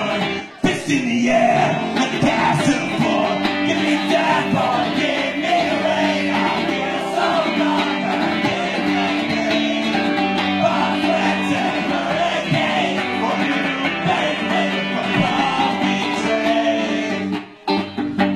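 Live rock music: an electric guitar played through an amplifier with singing over it. The music dips out briefly about half a second in and again near the end.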